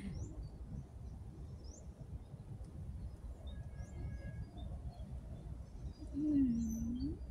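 Outdoor ambience with a low steady rumble and scattered faint bird chirps. About six seconds in, a single low drawn-out call dips and then rises in pitch over about a second.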